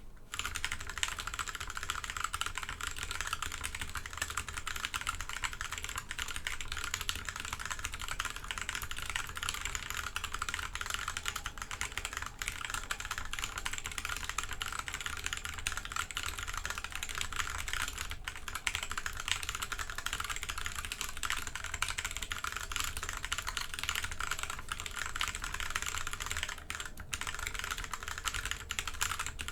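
Fast continuous typing on a mechanical keyboard with Kailh Box Pink switches whose click bars have been removed, so they act as linear switches. The keystrokes come as a dense stream of clacks, with a brief pause about 27 seconds in.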